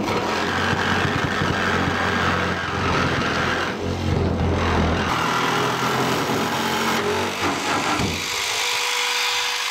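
Jigsaw running steadily as it cuts down through the bus roof's metal and fiberglass insulation; the saw starts abruptly.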